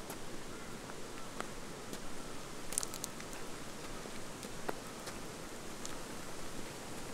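Footsteps crunching along a dirt bush track over a steady rustling background, with scattered small clicks and a brief sharp high click about three seconds in.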